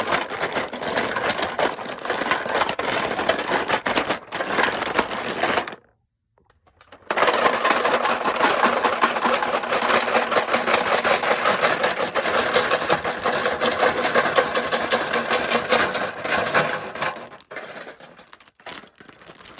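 Colourful plastic pens being handled: a dense run of quick clicks and scratches in two long stretches, broken by a pause of about a second and a half around six seconds in.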